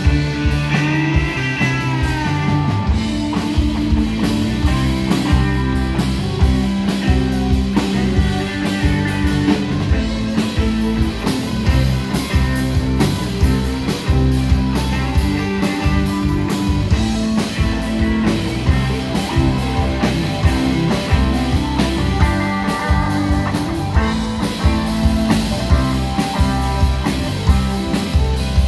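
Live blues-rock band playing: electric guitars, electric bass and drum kit over a steady beat, with a lead line of bent, sliding notes near the start and again about 22 seconds in.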